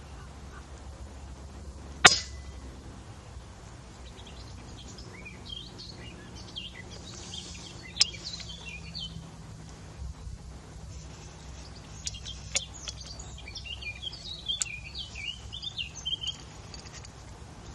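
FX Impact PCP air rifle firing a single sharp shot about two seconds in. Later, birds chirp repeatedly, with a few smaller sharp clicks.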